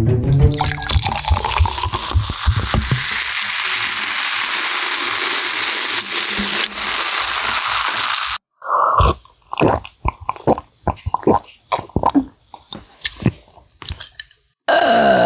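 Cola glugging from a plastic bottle into a glass, then a loud fizzing hiss as the carbonation foams up. The fizzing cuts off suddenly about eight seconds in and gives way to a run of short gulping and swallowing sounds as the cola is drunk.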